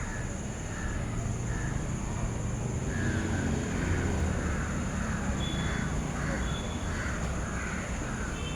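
Crows cawing over and over, about two calls a second from a few seconds in, over a steady low outdoor rumble.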